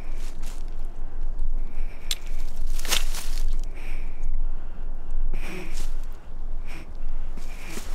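Heavy breathing through a gas mask respirator, one breath about every two seconds, over a steady low rumble, with a sharp click about three seconds in.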